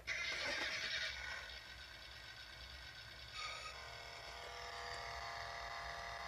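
A Road Rippers die-cast '05 Ford Mustang GT toy's sound chip playing electronic sound effects through its tiny speaker. The sound switches on abruptly and changes character about a second and a half in, then again about three seconds in.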